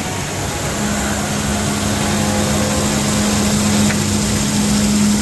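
SEMAC SMQH 800/2 SAL two-spindle CNC wood lathe running, its sanding wheel spinning against a turned wooden spindle: steady machine noise, with a steady hum that sets in about a second in.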